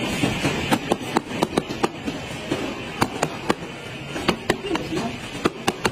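A mallet knocking a plastic lower guard plate into place on a car bumper: a quick, irregular series of sharp knocks, about three a second.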